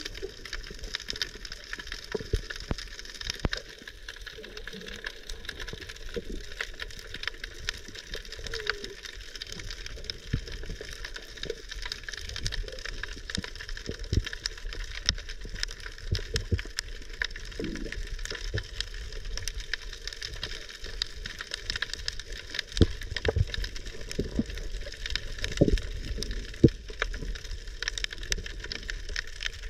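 Underwater sound picked up by a diving camera: a steady crackling hiss with scattered sharp clicks and dull knocks, and a few louder knocks near the end.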